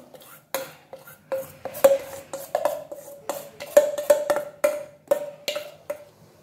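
Steel utensils clinking as a steel bowl is tapped and scraped to empty the last of the dhokla batter into a steel plate. The sharp metallic knocks come unevenly, about three a second, each with a short ring, and stop about six seconds in.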